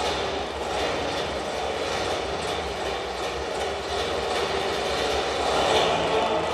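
Accompaniment music for a rhythmic gymnastics routine, played over a sports hall's loudspeakers and picked up muddy and dense, with a heavy low rumble.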